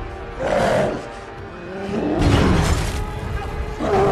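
Movie gorilla roaring and hammering at its enclosure, with heavy impacts and cracking, over a tense film score. There are loud outbursts about half a second in, from about two seconds in, and again near the end, with a short lull between the first two.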